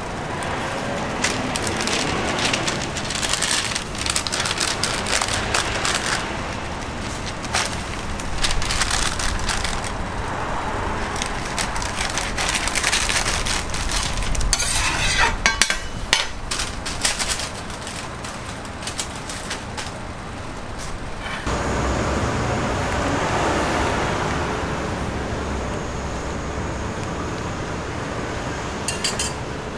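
Food-stall kitchen sounds: a metal spatula clicking and scraping on a flat-top griddle, then a paper wrapper crinkling around a toast sandwich. Partway through, the sound changes abruptly to a steadier low rumble of background noise.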